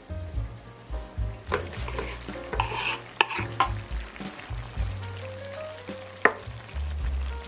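Food sizzling in a hot pan while a utensil stirs and scrapes it, with a few sharp clicks against the pan, over background music.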